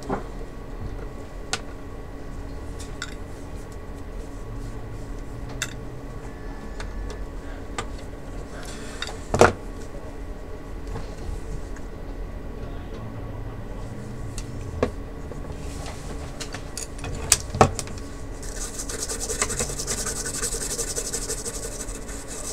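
Gloved hands handling and rubbing a monitor power-supply circuit board on a workbench: scraping and rubbing, with scattered light clicks and knocks. A sharp click about nine seconds in is the loudest sound, two more come near the three-quarter mark, and a stretch of hissy rasping runs near the end.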